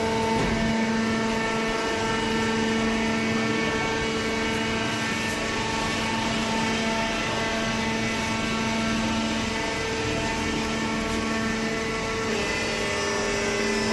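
Hydraulic cardboard baler's electric motor and pump running with a steady, even hum.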